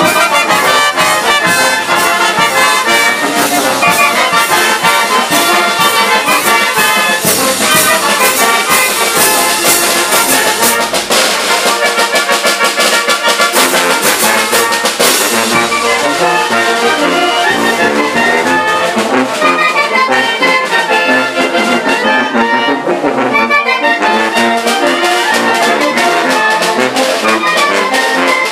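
A live village wind-and-brass band playing a dance tune: clarinets, flute, saxophones, trumpets and sousaphones over snare drum, bass drum and crash cymbals, loud and steady. The cymbal and drum strokes keep an even beat, strongest in the first half.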